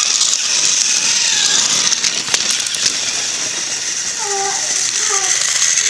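Battery-powered Trackmaster toy train running along plastic track, its small motor and gears giving a steady whirring rattle, with a few clicks about two seconds in.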